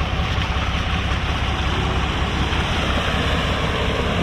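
Vehicle running off-road: a steady low engine rumble under a broad, even rushing noise.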